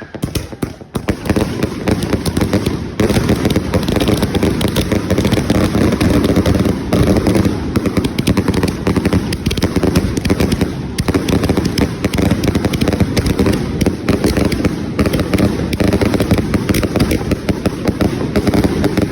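Gold strobe firework burning: a dense, continuous stream of very rapid crackling pops that starts about a second in and runs on.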